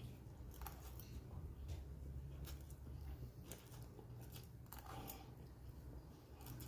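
Faint chewing: scattered soft clicks and crunches of someone eating, over a low steady hum.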